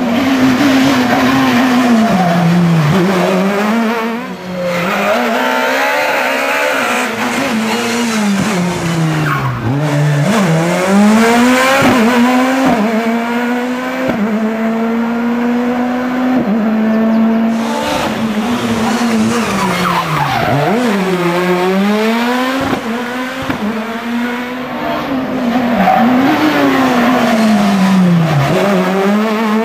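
Škoda Fabia S2000 rally car's engine revving hard through a tight section. The engine note climbs and drops again and again with each burst of acceleration, gear change and lift, with a few stretches held at a steady pitch.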